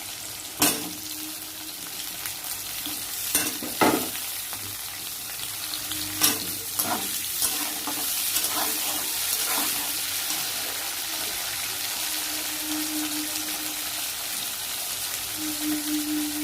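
Potato and papaya pieces frying in hot oil in a pan, sizzling steadily, with several sharp knocks and scrapes of the spatula against the pan as they are stirred.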